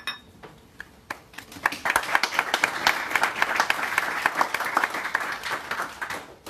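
Audience applauding at the end of a talk. There is a sharp click at the very start, then clapping that begins about a second in, builds quickly, holds and dies away near the end.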